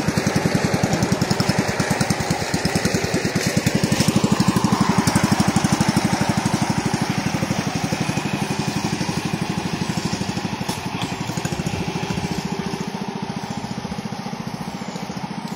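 Small single-cylinder motorcycle engine running at low speed with a rapid, even putter, easing off a little in the second half.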